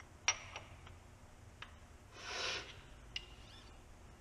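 Metal parts of a Marzocchi 48mm motorcycle fork clicking and tapping as the fork leg is handled, with a few sharp clicks that ring briefly and a short rushing noise in the middle.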